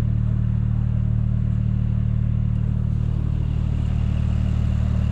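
A steady, loud low mechanical drone, a deep hum with an even pitch.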